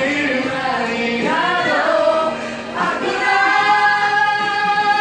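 A group of middle school students singing together in unison, with a long held note from about three seconds in.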